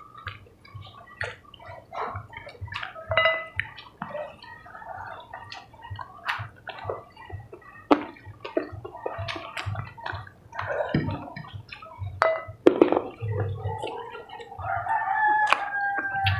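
Close-miked eating sounds from two people eating chicken and rice by hand: wet chewing, lip smacks and small clicks. A rooster crows in the background near the end.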